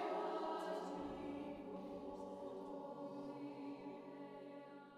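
A choir singing slow, sustained chords that fade away gradually toward the end.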